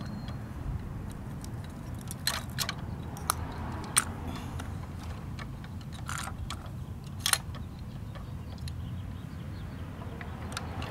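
Small sharp clicks and light rattles, about six in all, spread through the first seven seconds, as a toy garbage cart and its contents are handled and tipped into a diecast scale-model Curotto-Can. Under them runs a steady low rumble.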